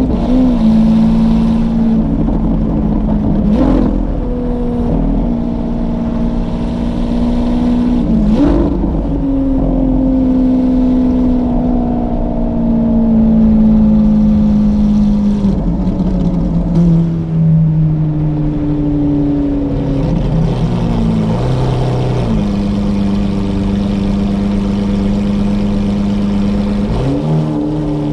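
Lamborghini Aventador SVJ's V12 through a Novitec exhaust, heard from inside the cabin while driving in town. The note breaks sharply twice in the first several seconds, like quick gear changes, then falls slowly as the car slows, and steps up and down again before settling into steady running.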